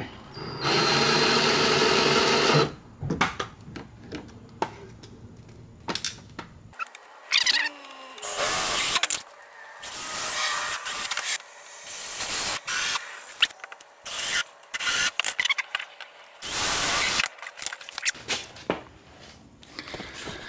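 Cordless drill driving self-tapping screws up through a plastic side splitter into the car's underside: one steady run of about two seconds near the start, then several shorter bursts, with clicks and knocks of handling in between.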